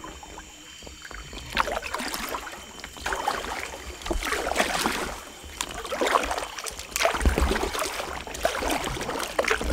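Double-bladed paddle of an inflatable kayak dipping and pulling through the water, a swishing splash with each stroke, about one a second.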